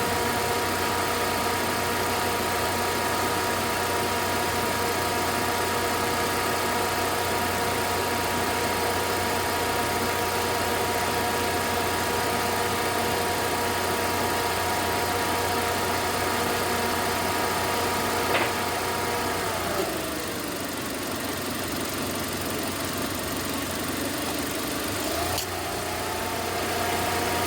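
Mitsubishi L200 pickup engine idling steadily on its freshly replaced accessory belts. There is a single click about 18 seconds in; then the engine note drops and wavers, rising again near the end.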